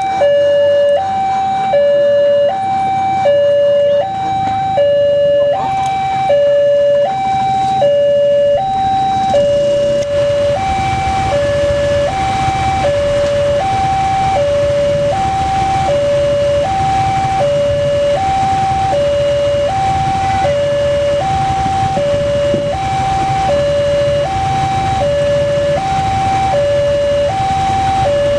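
Railway level-crossing warning alarm sounding an alternating high-low two-tone signal, about one high-low pair a second, with the barrier down ahead of an approaching train. A low rumble builds underneath about a third of the way in.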